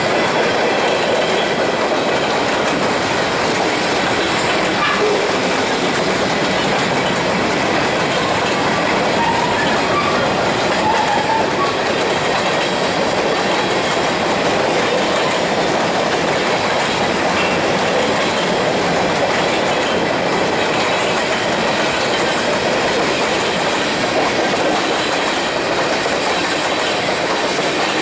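Freight cars of a long mixed CN freight train, tank cars and covered hoppers, rolling past: a steady rush of steel wheels on the rails with clickety-clack over the rail joints. A faint high steady whine sits above the rolling noise.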